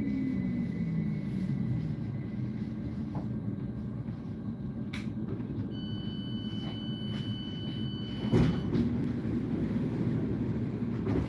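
Electric commuter train at a station, its motor whine falling in pitch as it slows at the start, then a steady low rumble. About six seconds in, a steady high tone sounds for a couple of seconds and ends with a thump, the loudest moment.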